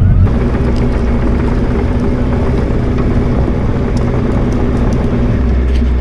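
Bobcat E42 mini excavator's diesel engine running steadily under load, with a few sharp cracks as the bucket works.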